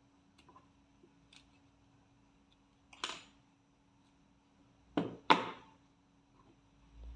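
Small metal rifle parts being handled during disassembly: a few sharp clicks and clinks, the loudest two close together about five seconds in, over a steady low hum.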